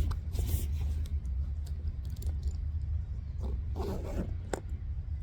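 A few short, scratchy zip-like strokes over a steady low rumble, with the busiest run of strokes near the end ending in a sharp click.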